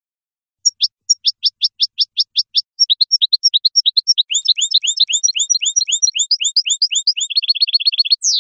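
European goldfinch singing. The phrase starts about half a second in with a run of quick repeated high notes, turns into a varied twittering, and ends in a fast trill and a single falling note that cuts off suddenly.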